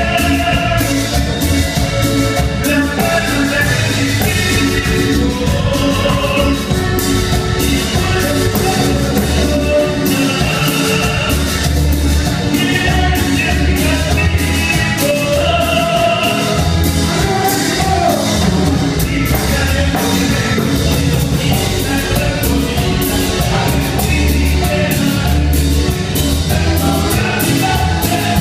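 Live band playing Andean cumbia, with several voices singing over a steady drum beat.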